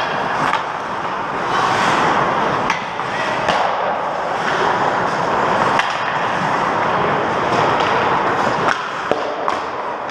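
Ice hockey play: skate blades scraping and carving the ice, broken by frequent sharp clacks and knocks of sticks and puck.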